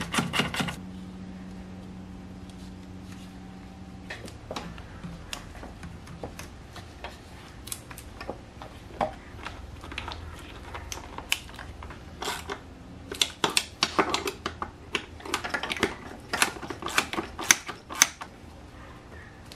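Irregular clicks and light knocks of gloved hands fitting a throttle body and its hose connections onto a BMW S52 engine's intake manifold, coming in quick clusters in the second half. A faint steady hum stops about four seconds in.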